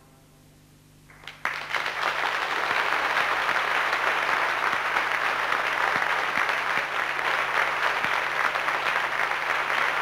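The orchestra's final chord dies away into a moment of quiet. About a second and a half in, the audience breaks into steady, dense applause that keeps going.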